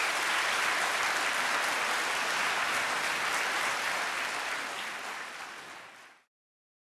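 Large audience applauding steadily, fading out over the last couple of seconds and stopping about six seconds in.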